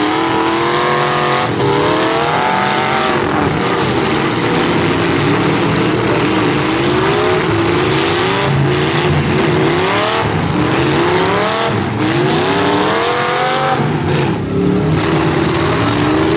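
Several V8 demolition derby cars with open exhaust stacks revving hard at once. Their engine pitch climbs and drops over and over as the cars accelerate, back off and accelerate again.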